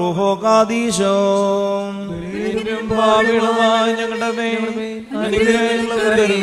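Male voice chanting a liturgical prayer on a nearly level pitch, in long held notes with slow changes of syllable.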